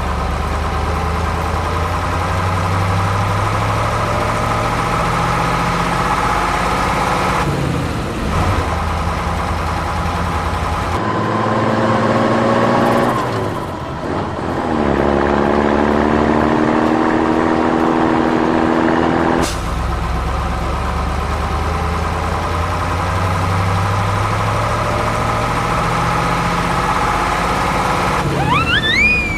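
A heavy truck engine running steadily, rising in pitch twice as it revs in the middle. A few quick rising whistle-like tones come right at the end.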